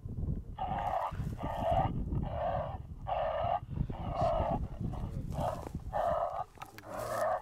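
A rapid series of short, yelping animal calls, about one and a half a second, over a steady low rumble.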